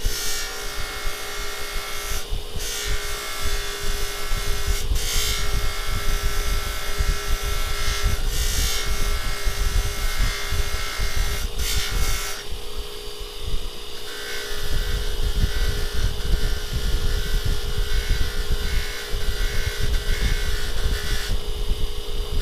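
Motor-driven polishing wheel running with a steady whine while the hex end of a steel screw is held against it, changing briefly every few seconds in the first half as the work is shifted. The sound changes character about halfway through.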